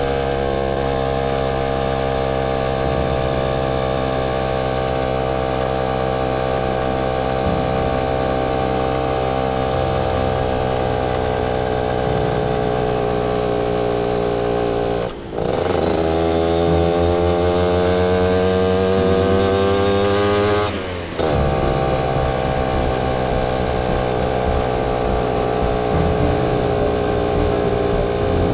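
Motorcycle engine running under way. The engine note sags slowly, cuts out briefly about halfway through for a gear change, and climbs steadily for about five seconds. It drops again at a second gear change.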